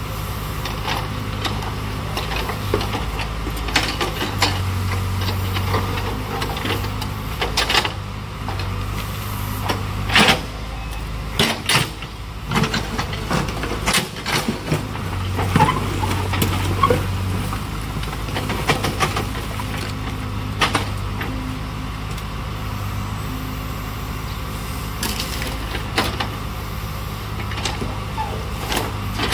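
Backhoe loader's diesel engine running steadily, with irregular knocks and clatter, heaviest in the middle, as it loads garbage into a dump truck.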